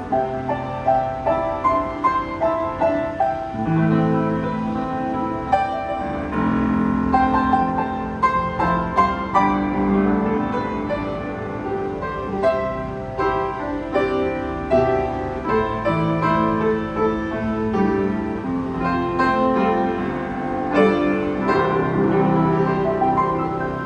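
Kawai BS-1A upright piano being played: a steady run of melody notes over chords. The instrument has been freshly reconditioned, with its hammers reshaped and its action regulated and voiced.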